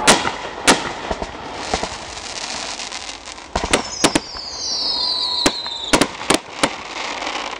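Aerial firework shells bursting overhead: about ten sharp bangs, the loudest near the start and a quick run of them in the second half, with a high whistle sliding down in pitch for about two seconds through the middle.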